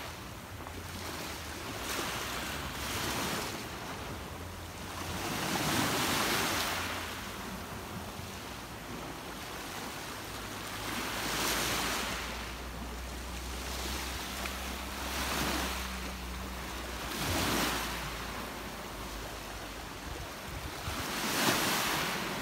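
Small sea waves washing onto a pebbly shore, each wash swelling and fading every few seconds, over a low steady rumble.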